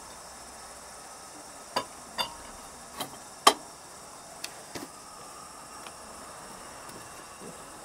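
Handling clinks and knocks from a lantern's glass globe and wire guard being lifted off and set down on a wooden table: about six short sharp clicks over some three seconds, the loudest about three and a half seconds in.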